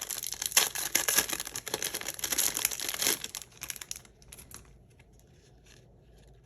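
Crinkly packaging being handled and torn open by hand, a dense crackling for about three seconds, then dropping to a few faint rustles and light taps.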